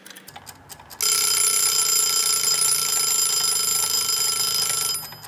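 Mechanical wind-up kitchen timer ticking quickly, then its bell ringing loudly and steadily for about four seconds before cutting off suddenly: the set time has run out, signalling the cake's baking time is up.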